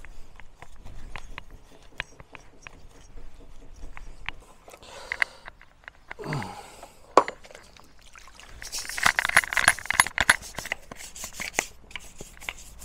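Stiff brush scrubbing soapy water over a Kawasaki Zephyr 550 motorcycle engine, in rapid scratchy strokes over the last few seconds, after scattered small clicks and knocks of handling.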